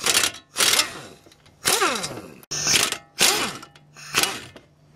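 Pneumatic air ratchet run in about six short bursts of whirring spin, backing out the 17 mm caliper bracket bolts; one burst slides in pitch as the tool spins up and down.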